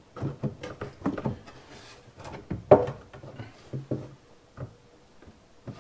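Wooden drawer being fitted onto newly installed metal drawer slides: a series of clicks and knocks as the drawer's slide rails engage the cabinet rails, with one loud knock nearly three seconds in.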